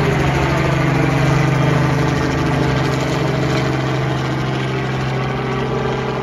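Robinson light helicopter climbing away just after takeoff: a steady engine drone with fast rotor chop, slowly fading toward the end as it gains height and distance.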